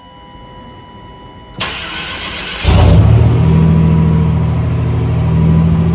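1991 GMC Syclone's turbocharged 4.3-litre V6 being started: the starter cranks from about a second and a half in, the engine catches about a second later, and it settles into a steady idle.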